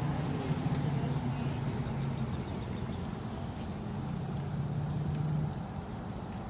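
Steady low engine drone over a rumbling noise, easing off about five and a half seconds in.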